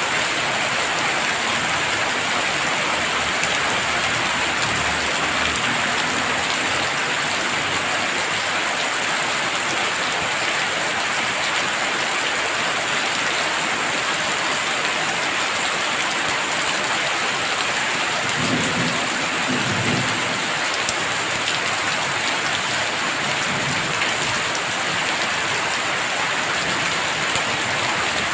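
Heavy rain pouring steadily, with low rolls of thunder, the clearest about two-thirds of the way through.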